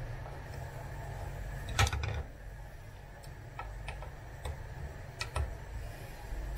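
Screwdriver work on the wheelchair drive unit's frame: a self-tapping screw being backed out to free the control unit, with a sharper knock about two seconds in and scattered small clicks and ticks after it, over a steady low hum.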